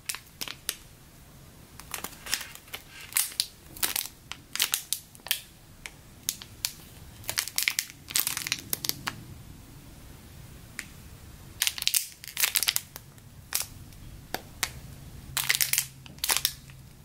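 Clear plastic packaging bags crinkling in irregular clusters of sharp crackles as hands squeeze soft foam squishy toys through them.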